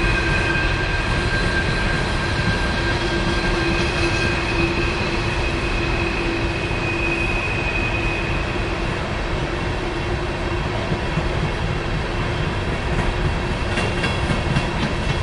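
A string of coal hopper cars rolling past with a steady rumble of wheels on rail. Over it, the wheel flanges squeal against the rail on the curve: several held, high-pitched squeals, one of which fades out about four seconds in while another comes and goes.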